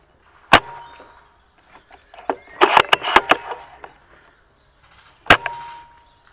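Two single airsoft rifle shots about five seconds apart, each a sharp crack followed by a short ringing tone. A quick cluster of sharp mechanical clicks and clacks comes between them.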